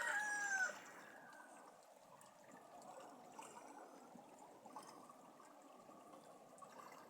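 The end of a rooster's crow, one drawn-out arching call that stops under a second in, followed by faint steady background noise.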